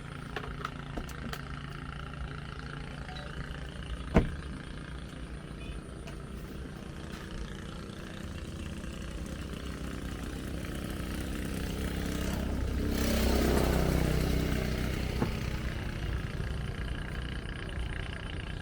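A motor vehicle passes on the road, its engine sound swelling to a peak about two-thirds of the way through and then fading, over a steady low background hum. One sharp knock about four seconds in.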